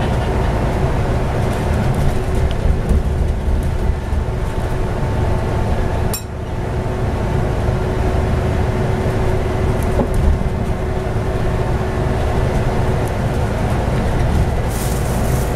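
Scania-engined Alexander Enviro 400 double-decker bus heard from inside while under way. Its low drone carries the steady whine of its ZF Ecomat automatic gearbox, with light rattles from the bodywork and windows. The sound dips briefly about six seconds in.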